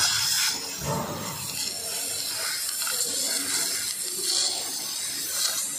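Oxy-acetylene cutting torch on a rail-running cutting tractor, hissing steadily as its jet burns through steel plate.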